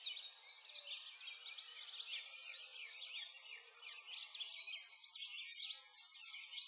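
Dense chorus of many small songbirds chirping and twittering continuously, with overlapping quick high-pitched calls.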